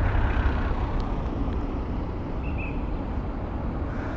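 Wind buffeting an action-camera microphone: a steady low rumble with a hiss over it.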